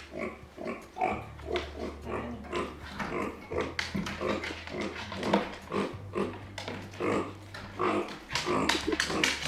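Micropig making a rapid run of short, agitated calls, about two or three a second, over a steady low hum. These are its complaining, angry calls at being left alone.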